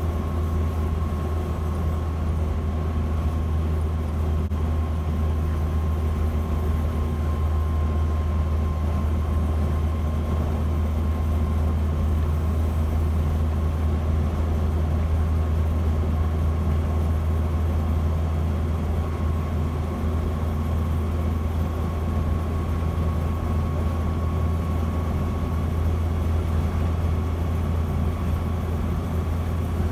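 A Land Rover Series 3's 2.25-litre four-cylinder petrol engine pulling at a steady cruise with road noise: an even, loud low drone with a faint steady whine above it.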